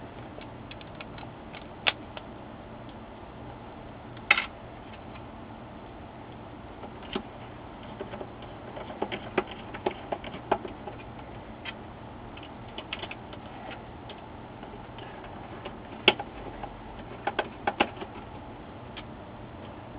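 Scattered small clicks and taps of a screwdriver and screws against the sheet-metal frame of an HP LaserJet 4P printer as the drive-motor screws are put back in, with clusters of clicks about halfway through and again near the end.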